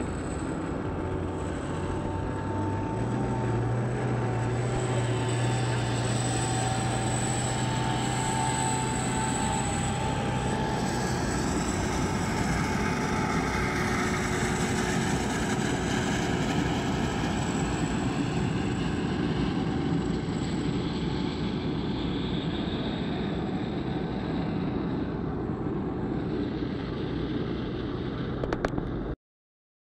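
Steady engine and motor noise from vehicles alongside a Boeing 747 under tow. A low hum steps up in pitch about three seconds in, over a high steady whine, and everything cuts off abruptly near the end.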